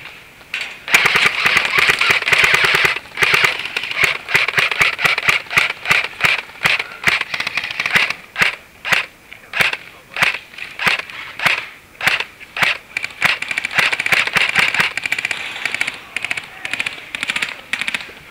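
Airsoft guns firing. A dense run of rapid full-auto shots starts about a second in, followed by short bursts and single shots a few each second, which thicken again about three quarters through and then thin out.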